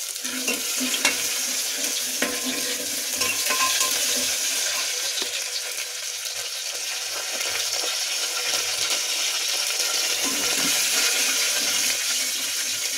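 Chopped garlic sizzling in hot oil with cumin seeds in a pressure cooker, a steady frying hiss, while a metal spoon stirs and scrapes against the pot with many small clicks.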